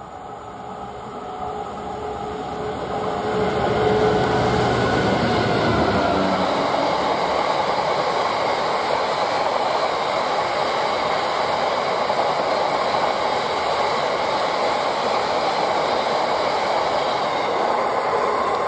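Diesel-hauled freight train passing. The locomotive's engine grows louder over the first four seconds and goes by about four to six seconds in, followed by the steady noise of the wagons rolling past.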